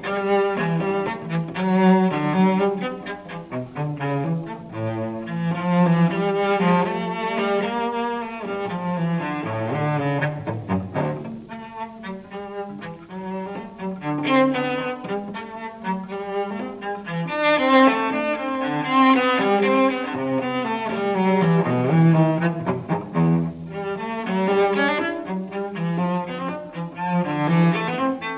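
Cello music: a bowed melody of moving notes in the instrument's low and middle range, playing on without a break.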